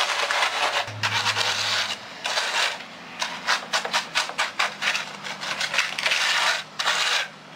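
Steel trowel scraping and pressing wet concrete with coarse gravel into a wooden form, the stones grinding and clicking against the blade in quick, uneven strokes.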